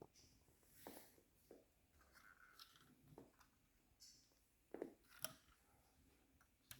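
Near silence, broken by faint scattered clicks and taps, two of them closer together near the five-second mark.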